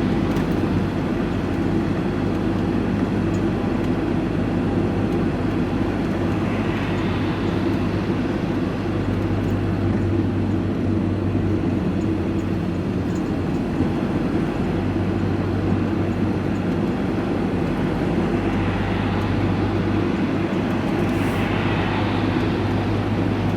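Steady engine and road noise inside the cab of a diesel vehicle driving along, a constant low hum under tyre hiss that swells briefly twice.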